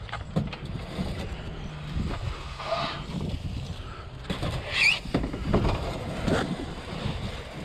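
Kayak hull being shifted on a pickup truck's overhead rack: handling knocks and thumps, with a few short high squeaks of the hull rubbing against the rack, one about three seconds in and a wavering one near five seconds.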